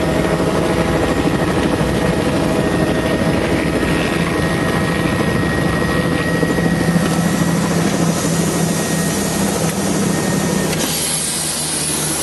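Helicopter engine and rotor noise heard from inside the cabin: a loud, steady drone with a low hum and a thin steady whine. Near the end the sound changes, the low hum thinning out and a high whine coming through.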